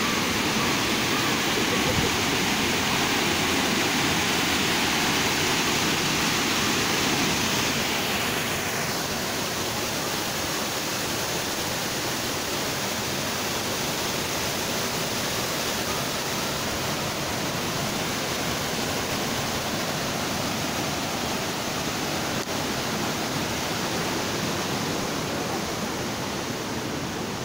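Small waterfall rushing over rock, a steady hiss of falling water that turns duller and a little quieter about eight seconds in, leaving a softer rush of flowing water.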